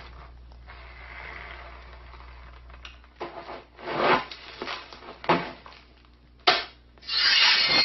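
Rubbing and scraping: a steady hiss, then a run of separate strokes about a second apart, and a longer, louder scrape near the end.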